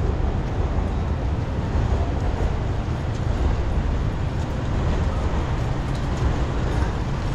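Steady low rumble and hiss of city street noise from passing vehicles.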